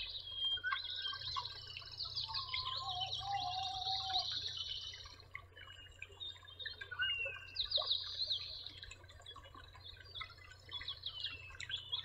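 Forest ambience: several birds singing and calling, with fast high trills that come and go and a few lower whistled notes, over a faint steady low hum.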